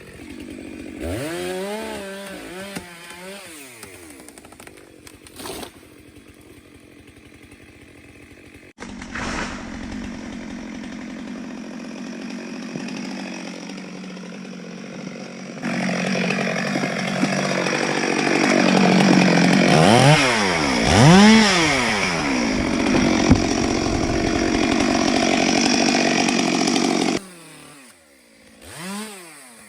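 Petrol chainsaw revving up and down in short blips, then held at high speed for several seconds as it cuts wood. The sound changes abruptly a few times, and near the end the saw drops back to brief revs.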